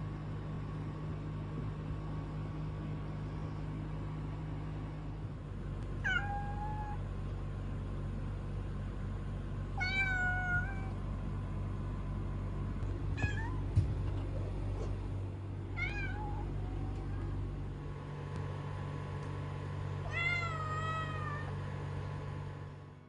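A kitten meowing five times, a few seconds apart, each call short and high-pitched, over a steady low hum. A brief sharp click comes just after the third meow.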